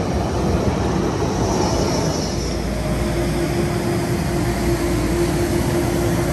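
Electric city tram running past on street rails, with a steady hum that comes in about halfway through.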